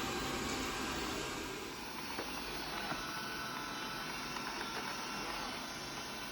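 Xiaomi Mi Robot Vacuum running, its suction fan and brushes a steady whirring hiss, with a couple of light knocks about two and three seconds in.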